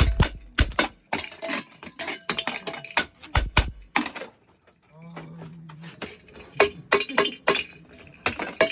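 Metal kitchenware (pots, pans and utensils) clinking and clattering in quick succession. There is a brief steady tone about five seconds in.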